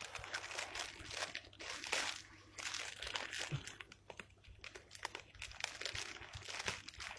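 Thin white plastic bag crinkling and rustling in irregular bursts as gloved hands pick at and untie its knot.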